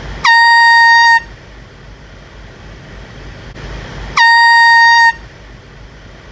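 Air horn blasted twice, about four seconds apart. Each blast is just under a second of one loud, steady high note that scoops up briefly as it starts and cuts off sharply.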